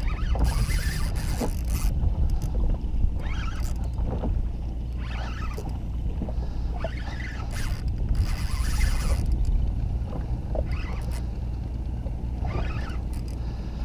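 Small boat's outboard motor idling low and steady, with two brief hissing rushes, about half a second in and again around eight seconds.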